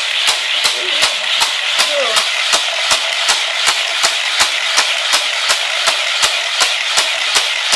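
Battery-powered Hot Wheels Trick Tracks booster running: a steady whirring rattle with regular clicks about four times a second.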